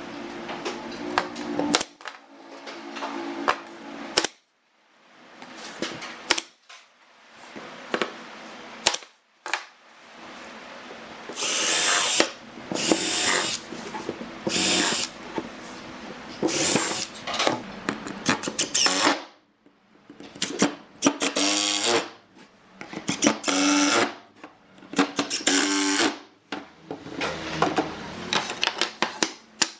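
Makita cordless drill running in a series of short bursts, drilling small holes into a wooden board. Between runs there are knocks and clatter of wood and tools being handled on the bench.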